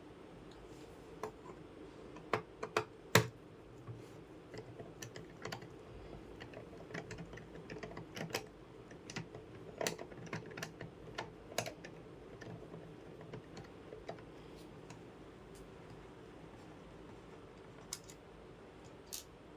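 Irregular sharp clicks and taps, loudest in a cluster a couple of seconds in and thinning out after about 12 seconds, over a steady low hum.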